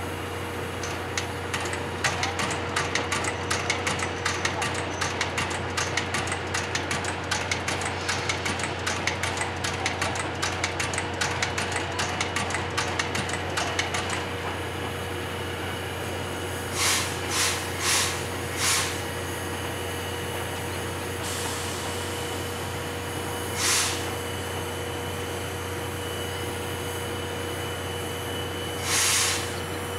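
Steam locomotive C58 363 standing with steam up: a rapid, irregular ticking for roughly the first half, then short sharp hisses of steam or air, four in quick succession, one more a few seconds later and a slightly longer one near the end.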